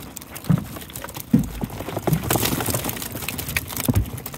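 Irregular knocks, thumps and rattles from handling a wire catfish net and its catch in a boat, with a few low thumps spread through.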